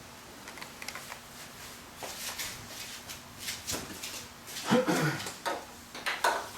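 Small clicks, taps and rustles of parts and tools being handled on a workbench, with a short squeak falling in pitch about five seconds in.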